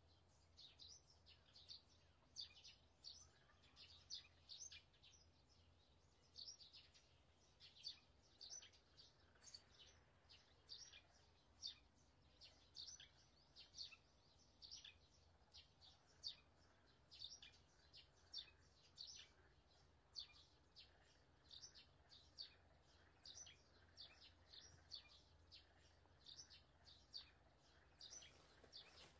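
Small birds chirping faintly: quick high-pitched chirps, two or three a second, over a low steady hum.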